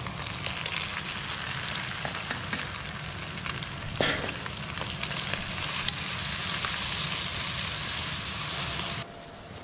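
Food stir-frying in hot oil in a pan: a steady loud sizzle with a couple of sharp knocks of the spatula against the pan. The sizzle drops away suddenly about nine seconds in.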